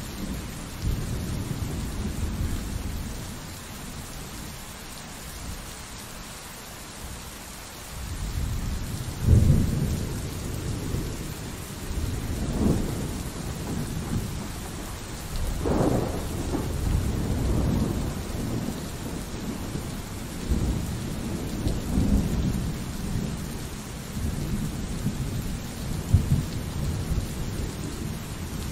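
Steady pouring rain with rolling thunder. After a calmer stretch, a long deep rumble builds about eight seconds in, and several louder peaks follow through the rest.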